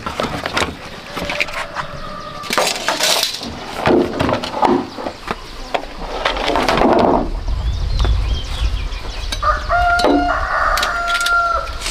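Sharp clicks, knocks and scrapes as tools and green bamboo poles are handled, with a rooster crowing for about two seconds near the end.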